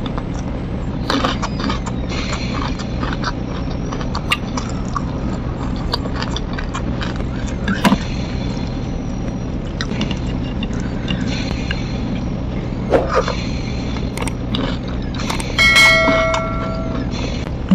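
Close-up chewing and crunching from eating crispy flour-battered fried salted fish with rice by hand, with scattered crunches and clicks over a steady low hum. Near the end, a notification-bell chime rings for about a second.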